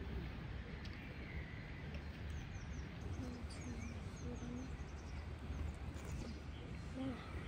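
Rural outdoor ambience: small birds chirping faintly and repeatedly over a low, steady background rumble.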